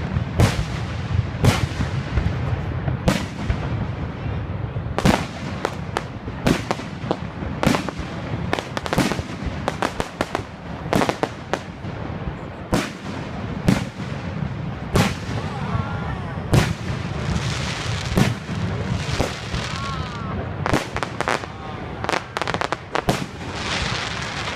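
Aerial fireworks bursting in a rapid, irregular string of sharp booms, about one to two a second, with crackling bursts among them in the later part.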